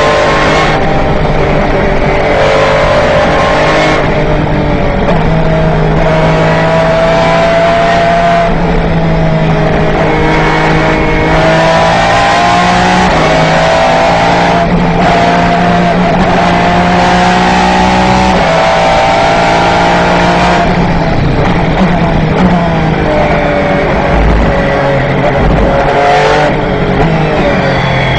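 Aston Martin 6.0-litre V12 of a Lola-Aston Martin B09/60 Le Mans prototype, heard from inside the cockpit at racing speed. The engine note climbs through the gears, its pitch rising in each gear and dropping back at each upshift, then it eases off about twenty seconds in.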